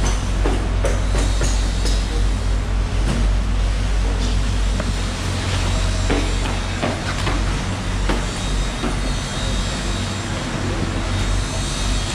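A steady low machine hum under constant background noise, with scattered sharp knocks of a large knife chopping fish on a wooden block.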